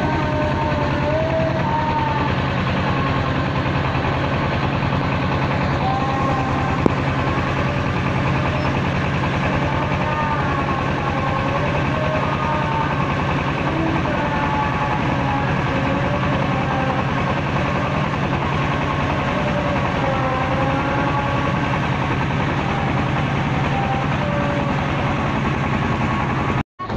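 Engine-driven mobile rice mill running steadily while milling paddy into rice: a constant mechanical drone with a wavering whine above it. The sound cuts out briefly just before the end.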